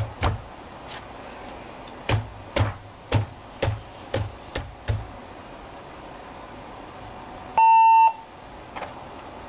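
A run of about eight sharp clicks over the first five seconds, then a single loud electronic beep about half a second long, a steady mid-pitched tone: the power-on beep of a Compaq LTE 5300 laptop.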